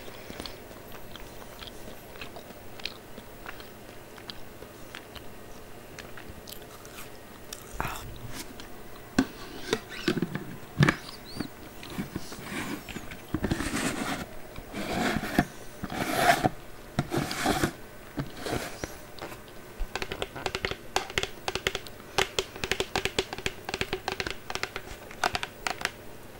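Close-miked biting and chewing of a crunchy snack. Faint mouth clicks at first, then loud crunching bites from about eight seconds in, then quick, steady chewing near the end.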